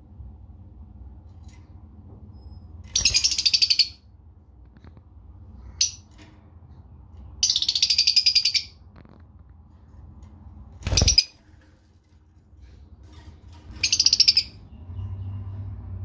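Fischer's lovebird giving shrill, rapid chattering calls in short bursts, four of them, each under a second. The one about eleven seconds in is the loudest and harshest, with a brief chirp about six seconds in.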